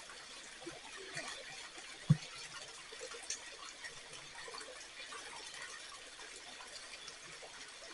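Faint, steady rush of flowing water, with a single low thump about two seconds in.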